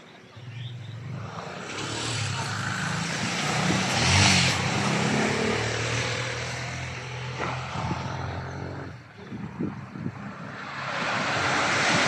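A motor's steady droning hum passes by, swelling to its loudest about four seconds in and fading away by about nine seconds. Near the end, surf on the beach swells up.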